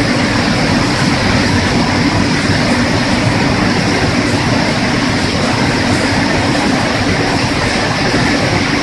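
Steady loud machinery noise of a running food-processing line: water churning in an air-bubble washing tank, together with the running conveyor and its motors.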